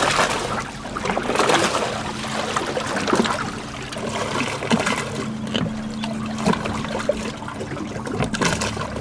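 Shallow lake water sloshing, trickling and splashing around a person wading and a stand-up jet ski hull being moved in the water, with small irregular splashes.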